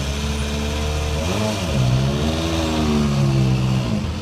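Citroën DS3 WRC rally car's 1.6-litre turbocharged four-cylinder engine revving at low speed as the car drives past: a quick blip of revs about a second in, then the revs rise and fall again as it pulls away.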